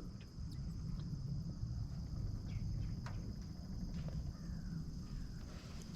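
Insects chirring in one steady high-pitched drone over a low rumble, with a few faint clicks about halfway through.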